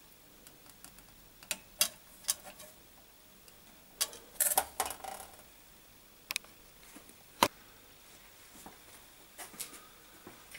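Sharp metallic clicks and taps of thin sheet-metal strips and a welding clamp being handled on a steel workbench: a few single clicks, a short rattling cluster a little before the middle, and one loud click about three-quarters of the way through.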